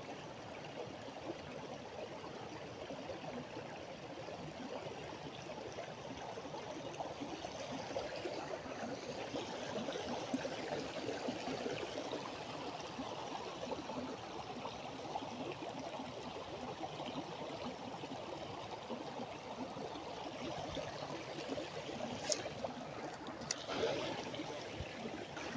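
Spring water trickling over rocks into a pool, a steady running-water sound, with a couple of short clicks near the end.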